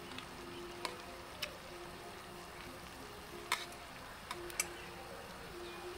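Metal chopsticks clinking against a stainless steel bowl and pot as noodles are served, five sharp clinks with the loudest about halfway through, over a steady soft hiss.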